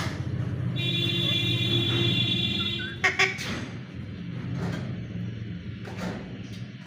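Alexandrine parrot giving short, harsh squawks: one at the start and a couple about three seconds in. Between them a steady high-pitched tone holds for about two seconds, all over a constant low rumble.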